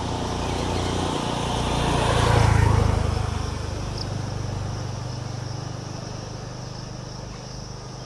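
A motor vehicle's engine, growing louder to a peak about two and a half seconds in and then fading away, as if passing by. Insects keep up a steady high drone throughout.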